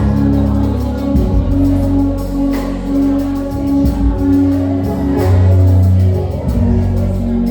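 Live gospel band music with a heavy bass line and held chords, with some singing.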